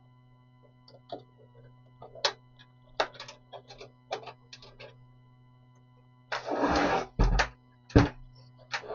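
Clicks, taps and rustling of PC cables and connectors being handled inside a computer case, with a short burst of rustling and a few louder knocks near the end, over a faint steady hum.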